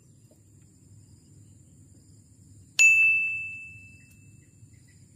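A single bright bell-like ding, struck once and ringing out on one clear note that fades over about a second and a half.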